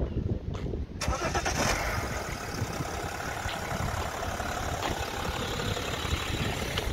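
BMW X5 engine starting about a second in, then running steadily at idle.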